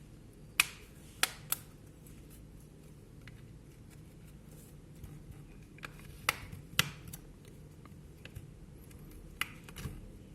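Small smartphone parts and tools being handled during disassembly: a handful of sharp clicks and taps, a cluster about a second in and another around six to seven seconds in, over a faint steady hum.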